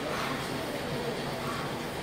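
Steady gym room noise with faint voices in the background.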